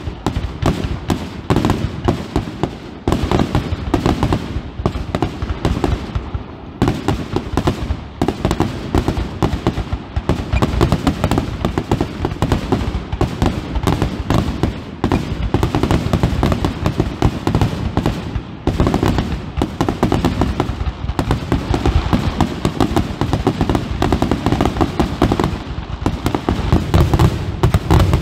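Aerial fireworks display: a dense, continuous barrage of shell bursts and crackling, the bangs overlapping with no break.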